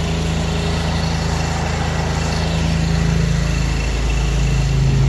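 Pressure washer's engine running steadily: a constant low hum with a haze of noise over it.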